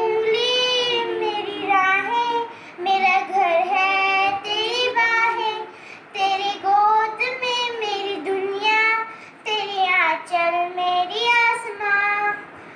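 A young girl singing alone, unaccompanied, in phrases of a few seconds with held, wavering notes and short breaks between them.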